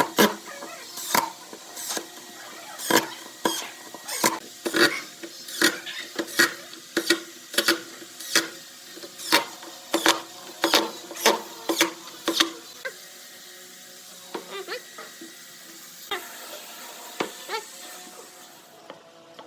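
Sharp taps or knocks from hand work on a woodworking piece, about one to two a second, for the first twelve seconds or so, then a few scattered, softer taps near the end.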